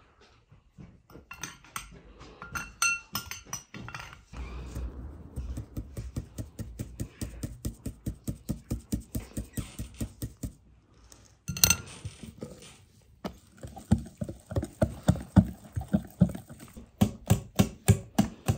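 A fine mesh sieve shaken and tapped over a glass bowl, sifting flour and cocoa, followed by a wire whisk beating the batter in quick regular strokes that clink against the glass bowl.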